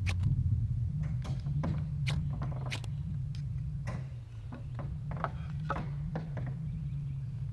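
Campfire burning and crackling: irregular sharp snaps and pops, about two a second, over a steady low rumble.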